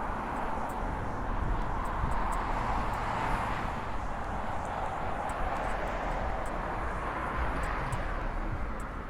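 Steady hiss of a rainy city street: wet-road traffic noise and rain, swelling and easing slightly, with scattered faint ticks.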